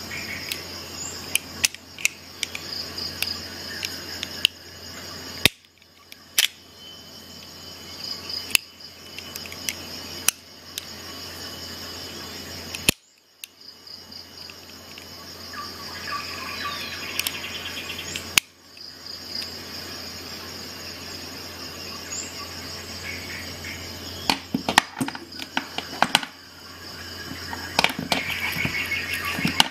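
Sharp metal clicks and clacks of folding stainless-steel multi-tool pliers being handled, their handles and jaws opened and closed, over a steady high-pitched chirring and a low hum.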